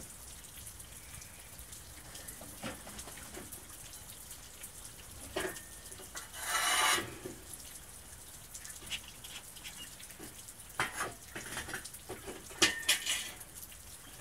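Rain falling during a thunderstorm: a steady hiss with scattered sharp drips tapping close by, clustered near the end, and a brief louder rush of noise about six to seven seconds in.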